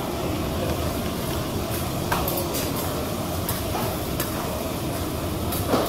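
Food frying on a steel teppanyaki griddle over a steady background hum, with metal spatulas scraping and clicking against the hot plate a few times.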